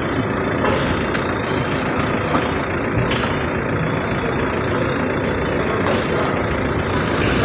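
Steady road-vehicle noise of a town street, an even rumble, with a few brief clicks.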